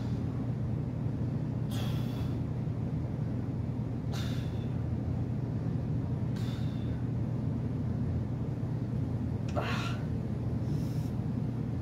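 Sharp, hard breaths from a man straining through reps of a seated barbell overhead press, about five of them a couple of seconds apart, over a steady low hum.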